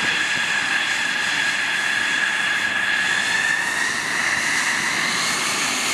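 F-16 fighter jet's engine running as the jet taxis: a steady high-pitched whine over a constant rush of jet noise, the whine edging slightly up in pitch partway through.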